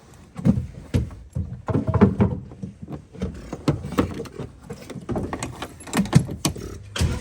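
A string of irregular knocks and clatters, several sharp ones close together.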